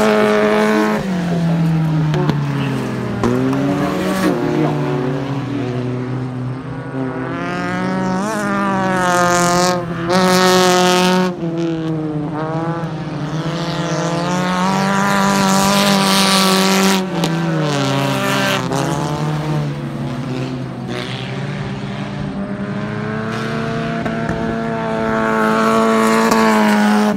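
Several stock car engines racing, revving up and down with their pitches rising and falling as they accelerate, shift and ease off for corners. A louder rushing noise comes about ten seconds in.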